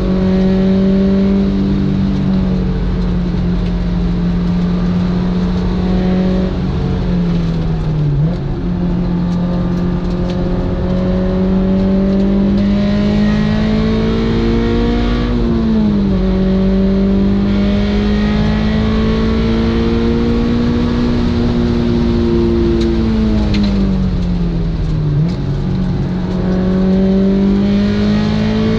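Honda S2000 engine and exhaust running while the car is driven. Its pitch holds steady or climbs slowly and drops sharply three times, about 8, 16 and 25 seconds in.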